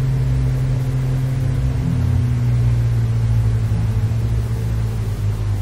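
Steady low drone of a car engine running, heard from inside the cabin, with road noise underneath.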